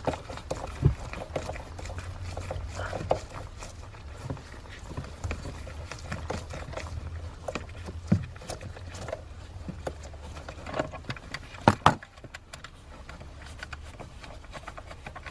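Scattered clicks and knocks of a hand tool and parts being handled while the 10 mm bolt holding a Ford Fusion's hood release handle is loosened and removed, the sharpest knock about twelve seconds in. A steady low hum runs underneath and fades out near the end.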